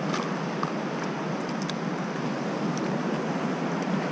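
Steady surf and wind rushing on the microphone, with a few faint light clicks.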